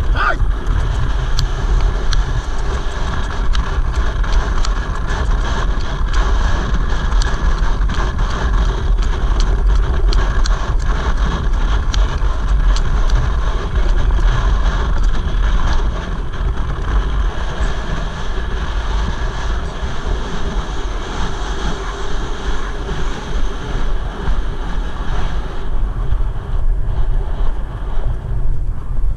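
Wind buffeting the microphone of a camera carried on a galloping racehorse: a loud, steady rush with a deep rumble, thinning slightly in the last few seconds.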